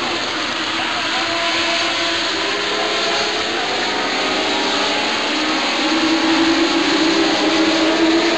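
Several Legend race cars' Yamaha motorcycle engines running on the track, their pitches rising and falling against one another over tyre and wind noise, getting louder about six seconds in as the cars come closer.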